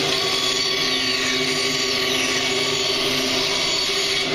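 Woodworking bandsaw running with a steady hum while its blade cuts through a wooden board fed by hand.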